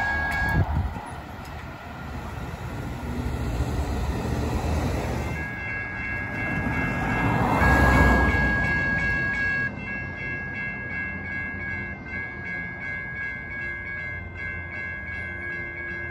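Light rail train approaching and passing through a level crossing, its rumble building to a peak about eight seconds in and then fading. A steady high ringing tone, pulsing at a regular beat, sounds through most of it; this fits the crossing's warning bell.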